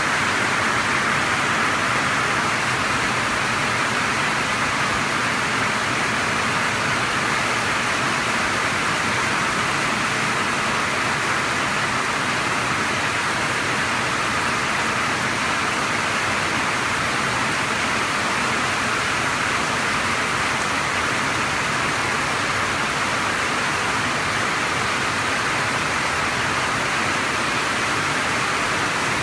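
Heavy spring rain downpour, a steady, even hiss of rain falling, heard from under a carport roof.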